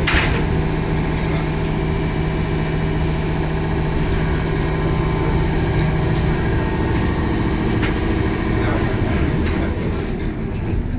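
Interior noise of a San'yō Line electric train running: a steady rumble of wheels on rails, with a steady low hum that fades out a little past halfway.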